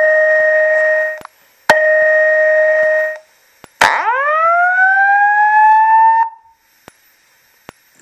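Wheelock speaker-strobe's speaker, driven straight from a stereo, sounding the alert tones of an evacuation message. Two steady two-note tone blasts of about a second and a half each are followed by a slow rising whoop, and a few sharp ticks come from the flashing strobe.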